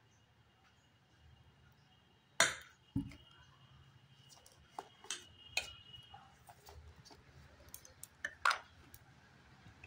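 Metal spoon clinking and scraping against a stainless steel bowl while batter for beguni is whisked with water: a series of irregular sharp clinks, the loudest about two and a half seconds in and again near the end, with quieter stirring between.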